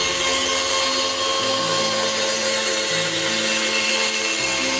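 Band saw running steadily, its blade cutting a curve through a plywood board.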